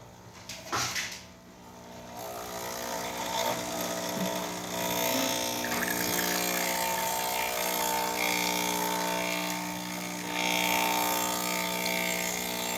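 A clack about a second in, then a Breville Oracle espresso machine's pump humming steadily as it pulls a test shot of espresso.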